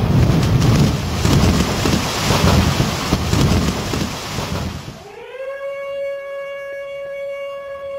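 Loud rumbling crash of a building collapsing after an explosion, dying away about five seconds in. It gives way to one held musical note that slides up in pitch and then holds steady.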